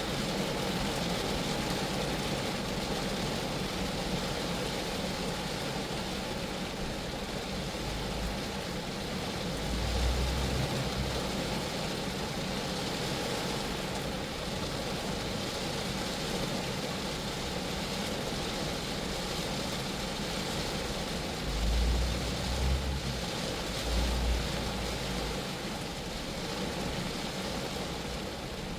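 Rain falling steadily on a Geo Metro car body, an even hiss of drops. A few brief low rumbles rise above it about a third of the way in and twice near the end.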